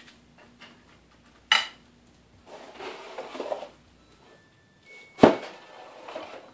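Parts of a 3D printer kit being handled and set down on a table: a sharp clack about a second and a half in, rustling, then a louder knock about five seconds in.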